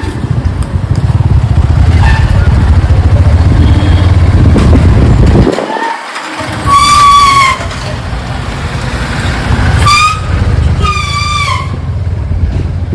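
Motorcycle riding in traffic, its loud low engine and road rumble dropping away briefly about halfway. Then vehicle horns honk three times: one longer blast, followed by two shorter ones near the end.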